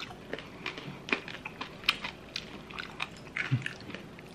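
Crispy fried pork belly skin crunching as it is bitten and chewed, a string of sharp, irregular crackles a few times a second.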